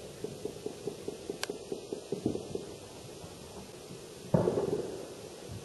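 Distant celebratory gunfire and fireworks. A rapid run of sharp pops, about six a second, lasts for the first two and a half seconds. About four seconds in comes a single louder bang with an echoing tail.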